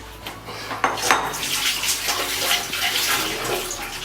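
Cake batter being scraped with a spoon out of a bowl and poured into a greased metal plate: two sharp clinks of utensil on the dish about a second in, then a wet scraping and pouring.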